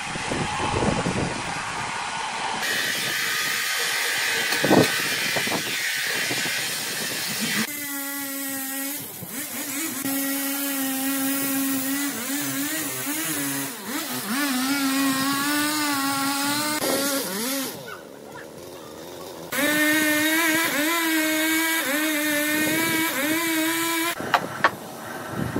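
Large band sawmill and log-handling machinery running: a steady mechanical whine that wavers slightly in pitch, broken off and restarted by several abrupt cuts.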